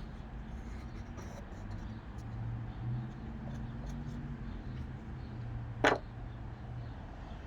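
Low steady hum with one sharp knock near the end, a short hard impact such as a wooden piece or tool being set down.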